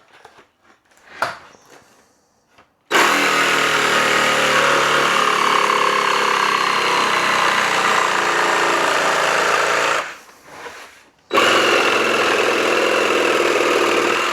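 Cordless power tool running flat out in two long runs, about seven seconds and then about three, with a short pause between. Its pitch drifts slightly down during the first run. The battery is on its way out.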